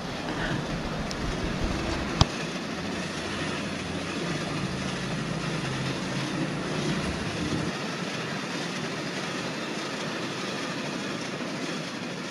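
Steady rumbling noise with a single sharp click about two seconds in.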